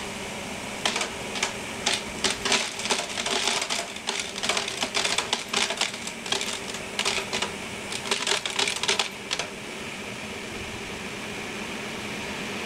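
FactoryCat Mini-HD cylindrical floor scrubber picking up nails and bolts: a rapid, irregular clatter of metal pieces struck by its cylindrical brushes, over the steady hum of the running machine. The clatter stops about nine and a half seconds in, leaving only the hum.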